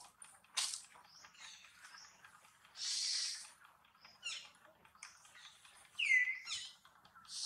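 A young macaque eating a ripe mango, with short wet sucking and smacking noises a few seconds apart. Birds chirp in the background, with one clear falling whistle about six seconds in.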